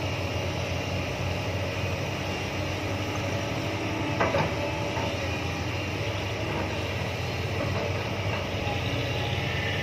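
JCB tracked excavator's diesel engine running steadily. About four seconds in, a brief knock and clatter as the bucket dumps a load of soil into the dump truck's steel bed.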